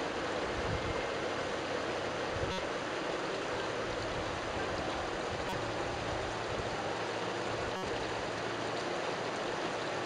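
Steady hiss of heavy rain falling, with two brief clicks, one a couple of seconds in and one near the end.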